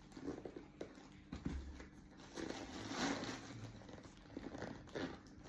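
Faint rustling and light clicks of a glossy leather shoulder bag being handled.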